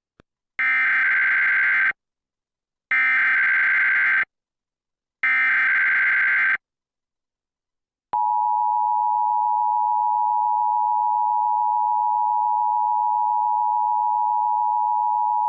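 Emergency Alert System encoder sending its SAME header: three identical short bursts of warbling digital data tones about a second apart, announcing a Required Monthly Test. About eight seconds in, the steady two-tone attention signal begins.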